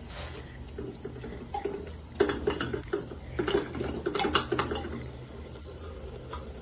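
A spatula stirring amaranth greens in simmering water in a clay pot: several scrapes, knocks and splashes between about two and five seconds in, over a steady low hum.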